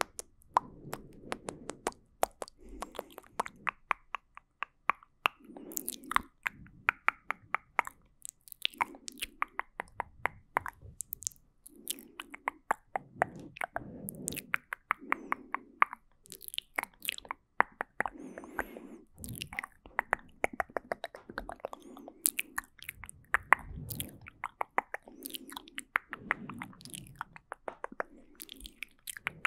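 ASMR mouth sounds made right at the microphone: a rapid run of wet clicks and pops of the tongue and lips, with soft breathy sounds in between.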